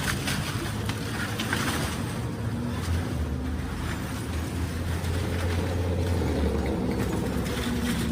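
Excavator's diesel engine running steadily, with a few sharp knocks in the first few seconds.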